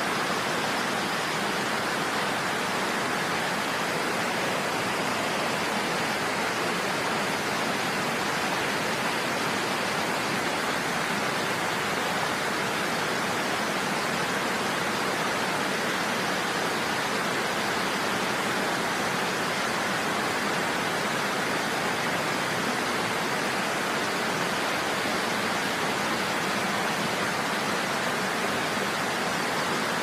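Steady rush of water from a low waterfall spilling into a shallow, rocky stream, even and unchanging throughout.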